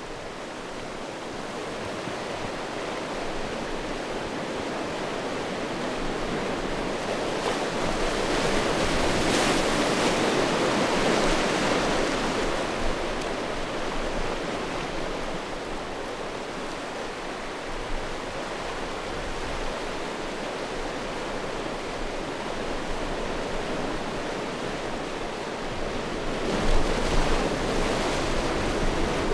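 Sea waves washing in over a beach of rounded stones: a steady surf that swells to its loudest about a third of the way through, eases off, then builds again near the end with a few sharper splashes.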